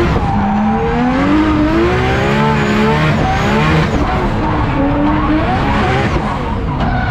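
Drift car engine revving up and down over and over as the throttle is worked, with tyres skidding.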